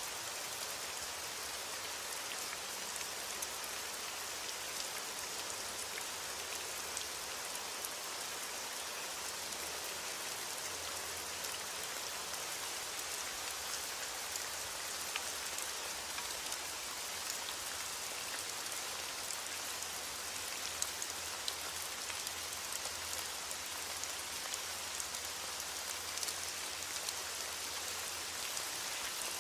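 Heavy rain beating on a window glass: a steady, dense hiss, scattered with small sharp clicks.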